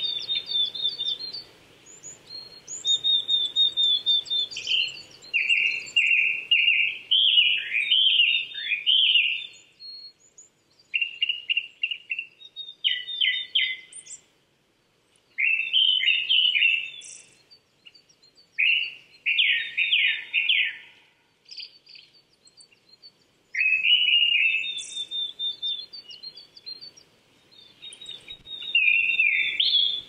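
Japanese thrush singing: a series of loud, clear whistled phrases, some with notes repeated in quick runs, each phrase followed by a pause of about a second.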